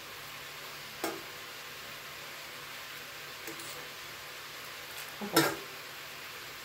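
Food sizzling steadily in a frying pan while it is stirred, with a sharp knock of a utensil on the pan about a second in and a louder clatter a little after five seconds.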